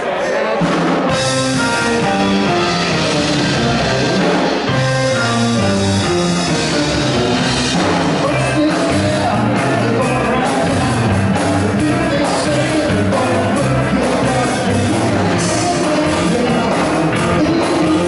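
A live blues band playing on drum kit, bass guitar, electric guitars and keyboard, at a steady loud level.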